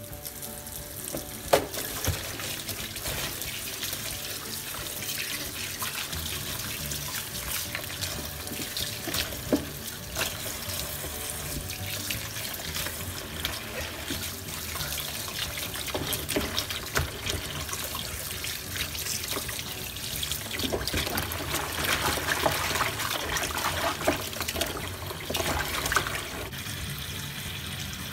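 Tap water running into a plastic basin while hands swish and rub a bunch of green onions to rinse them, with splashes and small knocks; a sharp knock about a second and a half in is the loudest moment.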